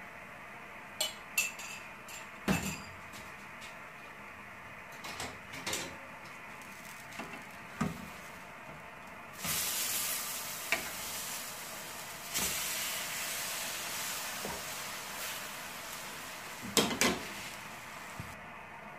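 Utensils clicking and tapping against a nonstick frying pan, then buttered, sugared bread sizzling as it is turned onto the hot pan. The sizzle starts about nine and a half seconds in and rises again about three seconds later as the second slice goes down, and it dies away near the end. A few loud knocks of the wooden spatula on the pan come shortly before the end.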